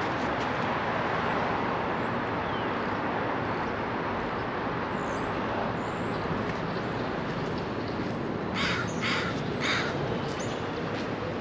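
Steady rumble of city traffic and running engines, with a crow cawing about four times in quick succession near the end.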